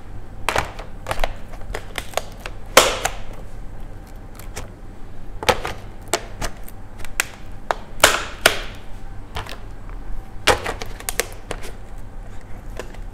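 Clear plastic lids being pressed onto plastic storage boxes and their clip latches snapped shut: a string of irregular sharp plastic clicks and snaps.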